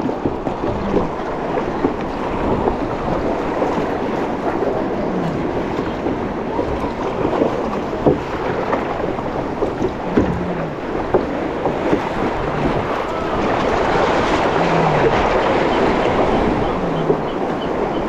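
Choppy ocean water sloshing and splashing around a plastic sit-on-top kayak as it is paddled, with wind buffeting the microphone. The water noise grows louder about thirteen seconds in.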